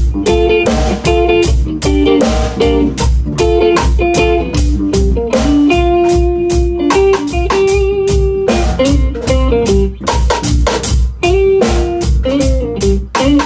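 Live band of electric guitar, bass guitar and drum kit playing an instrumental piece: the drums keep a steady beat on cymbals while the guitar plays a melody with a couple of long held notes in the middle.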